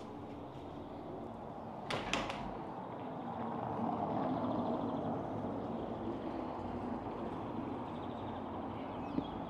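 Steady background ambience that swells through the middle, with a brief sharp clatter about two seconds in.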